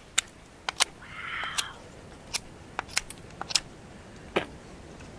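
Folding pocket knife with a crossbar lock clicking as it is handled: about ten sharp, irregular metallic clicks of the blade and lock, with a short soft rustle about a second in.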